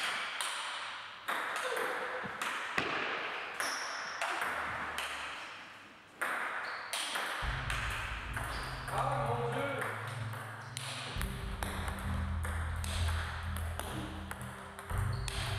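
Table tennis practice: a celluloid ball clicking on the table and off the rubber bats in quick, irregular succession as coach and child rally. A low rumble comes in about halfway.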